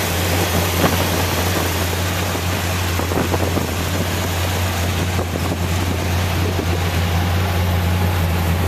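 Goodwrench 350 small-block V8 with an Edelbrock four-barrel carburettor idling steadily with the hood open.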